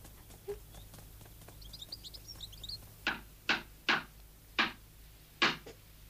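A few short bird chirps, then five sharp knocks like a hammer striking wood, spaced unevenly about half a second to a second apart: the last hammering on a log cabin as it is finished.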